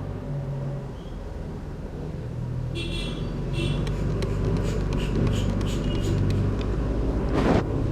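Steady low rumble of road traffic, with a run of light clicks and taps over its middle and a short, louder burst near the end.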